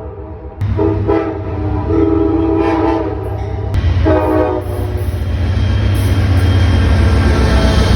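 Locomotive air horn sounding a few chord blasts in quick succession. Under it and after it comes the loud, steady rumble of a train running close by.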